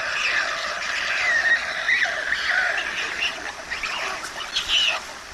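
White stork chicks begging for food from an adult on the nest: a continuous chorus of wavering, squeaky calls.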